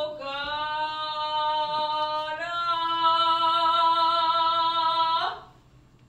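A woman's voice holding one long wordless sung note, stepping up slightly in pitch about two and a half seconds in and breaking off suddenly about five seconds in.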